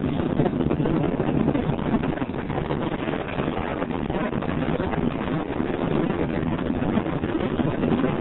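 Steady rumble and rush of a car driving along a road, tyre and engine noise mixed with wind.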